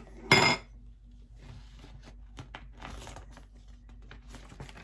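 Paper rustling and crinkling as a folded card is handled and opened, with one sharper, louder crackle about a third of a second in, then light scattered rustles.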